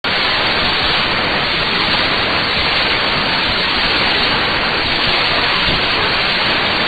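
Steady shortwave static hiss from an SDR receiver tuned to 17640 kHz, with no programme audio on the frequency yet.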